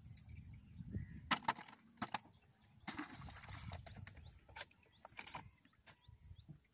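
Scattered knocks and taps on a wooden dugout boat as fishing gear is handled, with a second-long rustle about three seconds in.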